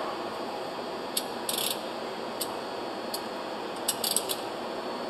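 Socket wrench ratchet clicking in a few short bursts while being worked on the pump's coupler bolts, over a steady background noise.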